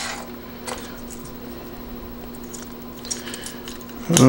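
Faint clicks and handling noise from the small plastic parts of a disassembled Sony RX100 lens barrel being turned in the fingers, over a steady low hum, with a sharper click just before the end.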